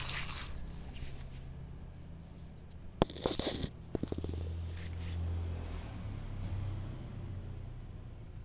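Ginger kitten eating rice off a plastic plate: a rustle as the food is set down, a sharp knock about three seconds in, then a burst of rustling and a run of quick clicks as it feeds. A steady high whine runs underneath throughout.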